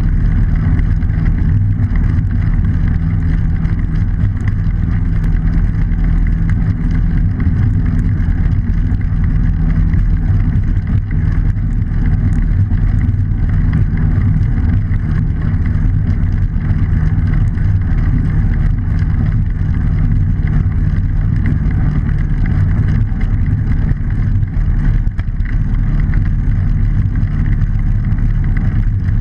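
Steady low rumble of wind and road noise on a bicycle-mounted camera while riding along a road.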